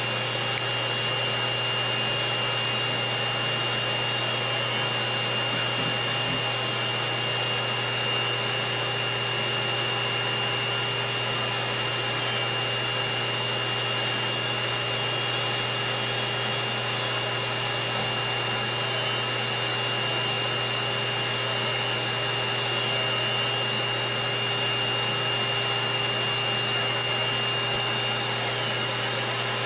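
Electric podiatry nail drill running steadily at speed with a constant high whine and hum, its burr grinding down a toenail.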